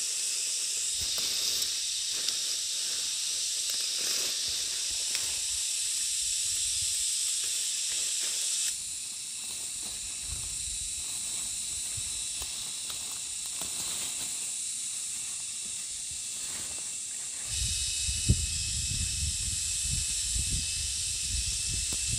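A steady, high-pitched chorus of insects with several ringing tones, changing abruptly twice. Faint rustling and light clicks sound underneath, and a low rumble joins near the end.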